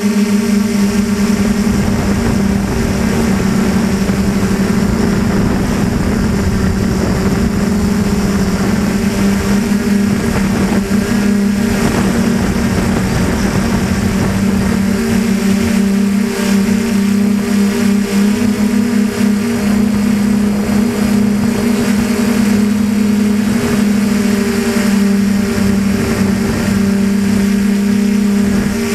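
DJI Flamewheel 450 quadcopter's electric motors and propellers in flight, heard from the onboard camera: a loud, steady buzzing hum that wavers slightly in pitch, with a rushing noise beneath.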